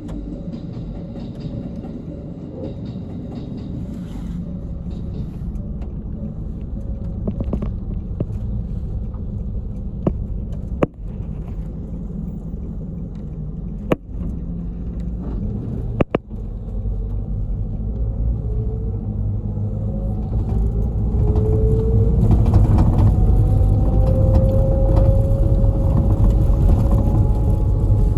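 Route bus's engine and drive running, heard from inside the cabin as the bus pulls away and gathers speed. The rumble grows louder about two-thirds of the way through, with a rising whine as it accelerates. Three sharp knocks near the middle.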